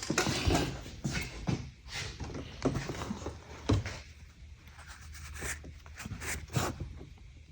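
Irregular light clicks, knocks and rustling from handling, as the camera and engine parts are moved about. The sounds thin out after about four seconds.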